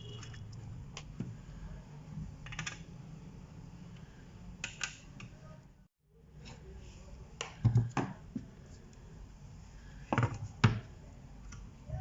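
Screws being driven and metal parts handled while a hard drive is fixed into a DVR's metal case: small clicks and scrapes, with several sharper knocks in the second half. The sound drops out briefly about halfway.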